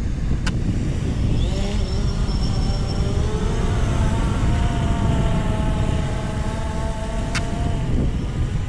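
Camera drone's motors spinning up for take-off: a whine rising in pitch over a couple of seconds, then holding steady as the drone climbs away, and fading out near the end. Heavy wind noise on the microphone underneath, with a sharp click just after the start and another near the end.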